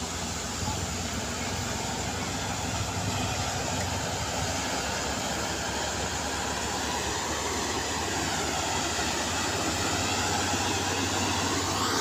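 Steady engine and road noise of a heavy vehicle, with an engine note that rises in pitch over the last few seconds.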